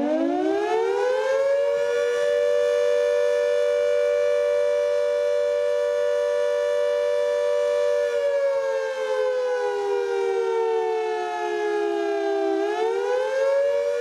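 Civil defense siren sounding a warning: it winds up over the first second or two, holds a steady wail with two close pitches sounding together, slowly winds down from a little past the middle, then winds back up near the end.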